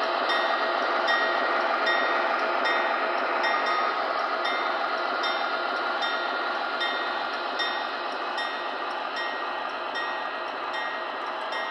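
MTH Premier O-scale ES44 model diesel locomotive running on three-rail track, its onboard sound system playing a steady diesel engine sound over the running of its motors and wheels. A short high ting repeats about every two-thirds of a second, and the whole sound slowly fades as the locomotive moves off.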